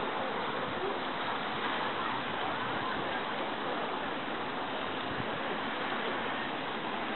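Steady outdoor ambience: an even, hiss-like wash with no distinct events or clear voices.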